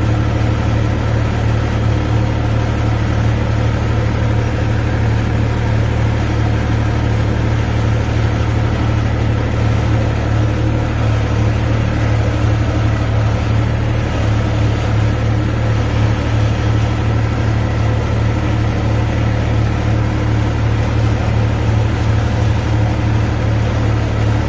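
Tractor engine running steadily at an even speed, with a strong low hum that doesn't change.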